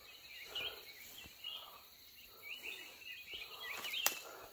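Small birds chirping and twittering in quick wavy calls, with soft rustling and one sharp click about four seconds in.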